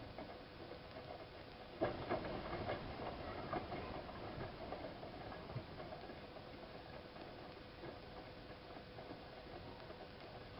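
Siemens iQ WIQ1430 front-loading washing machine in its 90°C boil wash: about two seconds in the drum turns, laundry and water tumbling with light clicks, then easing off. A faint steady hum runs underneath.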